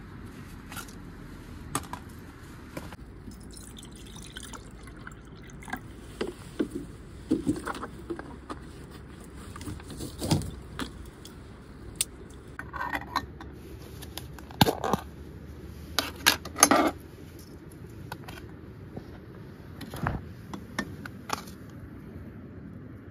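Aluminium moka pot and metal camp utensils being handled on a table: scattered clinks and knocks, with water being poured, while coffee is made. The knocks bunch together in the middle of the stretch.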